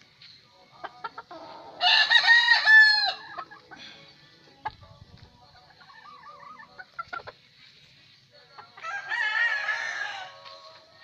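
Gamefowl roosters crowing twice, the first crow about two seconds in and louder, the second near the end, with faint clucking between.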